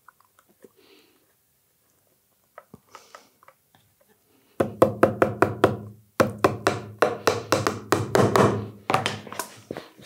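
Small hammer tapping brass-headed upholstery nails through leather into a wooden bellows. After a few seconds of faint handling clicks, a quick run of sharp taps starts about halfway in, several a second.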